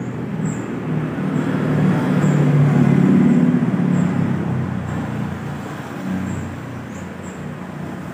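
Road traffic passing on a street: a motor vehicle's engine and tyres swell to a peak about three seconds in and then fade away, over a steady traffic hum.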